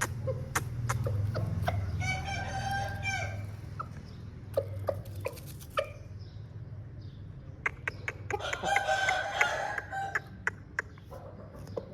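Aseel rooster crowing twice, one crow about two seconds in and another about two-thirds of the way through, with sharp clicks scattered between them over a steady low hum.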